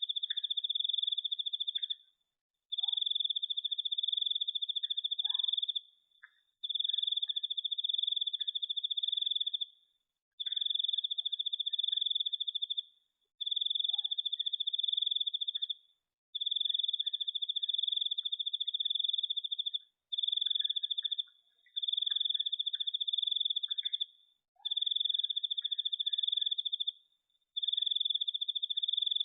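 A cricket trilling at one steady high pitch in long bursts of two to three seconds, broken by short pauses, with faint scattered chirps and ticks lower down.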